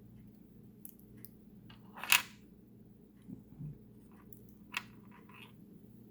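Small plastic packet of glass beads being handled and opened: a scattering of short crinkles and clicks, the loudest a sharp crackle about two seconds in.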